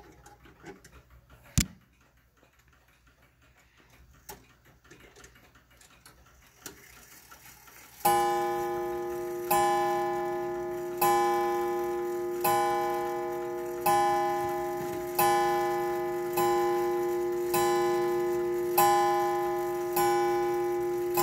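An 1880s Ansonia mantel clock striking the hour, each strike a ringing tone that sustains into the next, about one strike every second and a half. The striking begins about eight seconds in, after a single sharp click.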